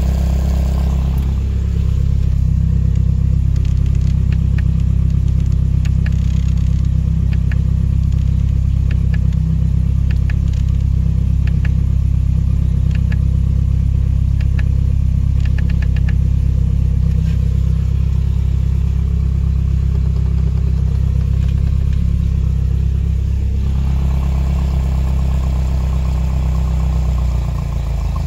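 Mercury 40–60 hp EFI four-stroke outboard running steadily at low revs on the test stand, with a few faint ticks in the middle. About two-thirds of the way through, the engine note changes.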